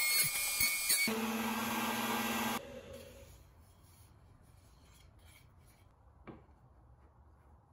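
Table-mounted router with its bit cutting along the edge of a thin wood strip, then running free with a steady tone after the wood leaves the bit. It is switched off about two and a half seconds in and winds down, and a single small knock follows later.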